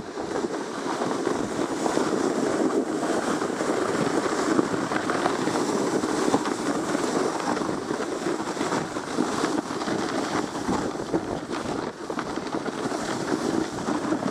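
Sled sliding downhill over packed snow: a steady rushing scrape from the sled running on the snow, mixed with wind buffeting the microphone.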